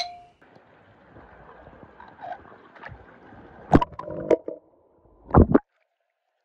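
Swimming-pool water gurgling and bubbling around a sinking toy train, then a few sharp splashes. The sound cuts off abruptly about a second before the end.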